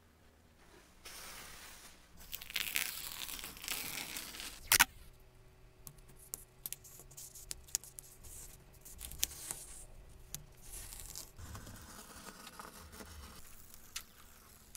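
Adhesive tape pulled off its roll with a long ripping sound that ends in a sharp snap, followed by small taps and rubs as the tape is pressed down onto a paper strip, and a second shorter rip later on.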